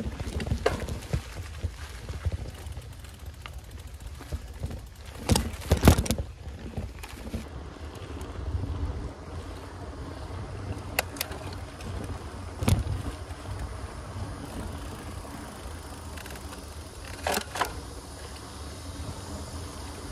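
Wind rumbling on the microphone of a camera carried on a moving mountain bike. Several sharp knocks and rattles from the bike come through, some in pairs, the loudest about six seconds in.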